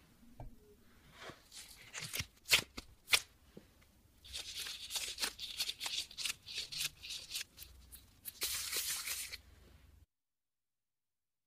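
Disposable plastic gloves crinkling and rustling as hands press and wrap dough around a dry meat floss filling and roll it into a ball, with a couple of sharp clicks early on. The sound cuts to dead silence near the end.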